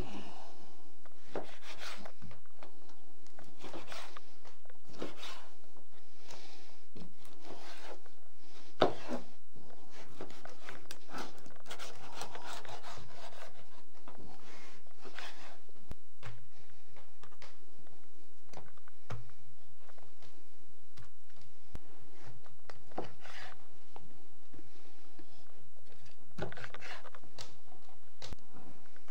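Knife work on a wooden board: irregular rubbing and scraping strokes, with one sharp knock about nine seconds in.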